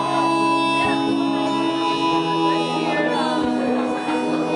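Live solo music: an acoustic guitar run through a pedalboard of effects, with layered, sustained held tones under it. The harmony shifts about two seconds in.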